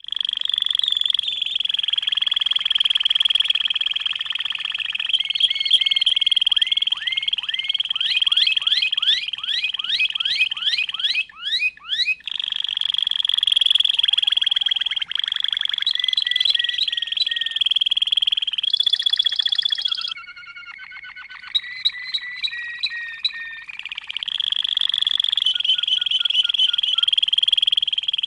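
Canary singing a long song of rolling trills, with a run of quick rising whistles near the middle and a softer passage a little later.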